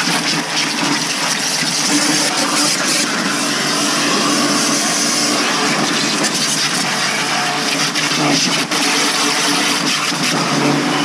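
High-pressure water jet from a pressure-washer gun with a 0-degree nozzle, blasting grime off a vehicle's front and the ground: a loud, steady hiss of spray. Under it is the steady hum of the Ryobi 2500 induction-motor pressure washer running under load.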